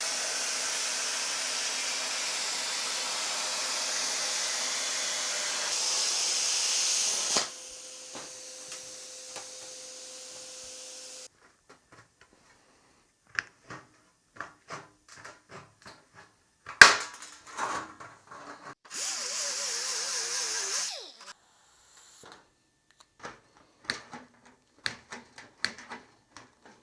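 A power tool cutting a piece of thin sheet steel, running loud and steady for about seven seconds. It then drops to a quieter, even hum that stops suddenly about eleven seconds in. After that the loose metal piece clicks and knocks as it is handled, with a brief hiss of noise about twenty seconds in.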